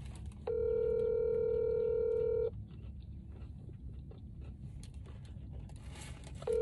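Telephone ringback tone heard over a phone's speaker as an outgoing call rings unanswered at the other end. There is one steady ring about two seconds long starting about half a second in, then a pause of about four seconds, and the next ring starts near the end.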